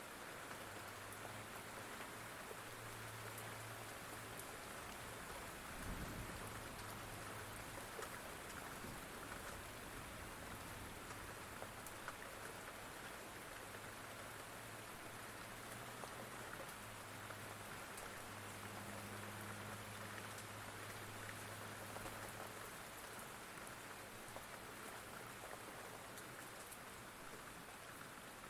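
Steady rain falling, with scattered individual drops ticking on a surface. A faint low rumble comes and goes, with a soft thump about six seconds in.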